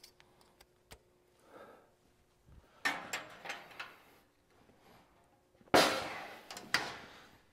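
Heavy metal compartment door on a manure vacuum machine being handled, with a clank about three seconds in, then swung shut with a louder bang near six seconds that rings on for over a second.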